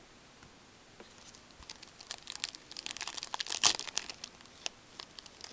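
A trading-card pack wrapper being torn open and crinkled by hand: quiet at first, then a dense run of sharp crackles from about a second in, loudest a little past the middle.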